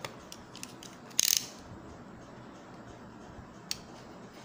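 Snap-off utility knife working at the tape of a cardboard model-car box: a few light clicks, a short sharp scrape of the blade about a second in, and one more click near the end.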